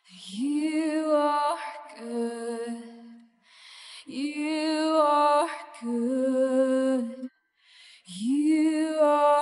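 Slow wordless sung melody. The same short phrase comes three times about four seconds apart, each rising into a held, wavering note and then stepping down to a lower one, with short pauses between.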